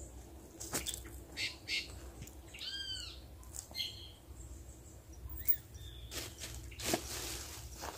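A bird calls: one arched note with overtones about three seconds in, then a few shorter notes. Scattered clicks and a short rustle near the end come from fishing tackle being handled.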